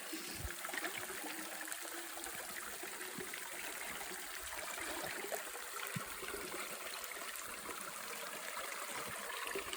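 Shallow creek water running and trickling over rocks, a steady wash of water, with a few faint low knocks.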